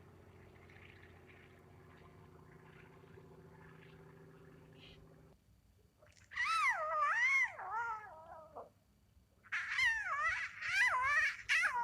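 A faint low steady hum for about the first five seconds, then a cat gives two long meows whose pitch wavers up and down, the second starting about three seconds after the first ends.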